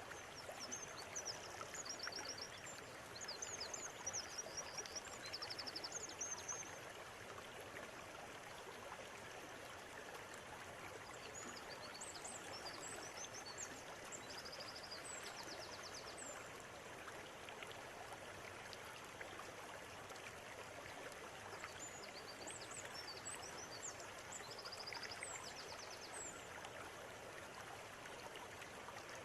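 River water running steadily, with small birds calling in three spells of quick high-pitched trills and chirps.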